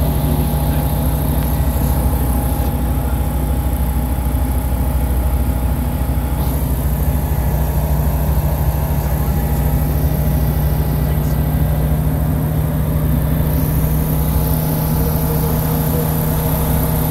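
Light propeller aircraft's engine droning steadily in flight, heard from inside the cockpit with a constant low hum and a hiss of airflow over it.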